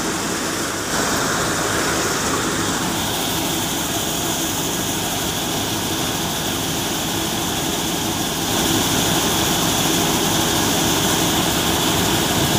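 Tractor-driven Mayur thresher running steadily while threshing moong (green gram): a continuous mechanical drone from the machine and the tractor engine driving it. It gets a little louder about a second in and again around eight and a half seconds.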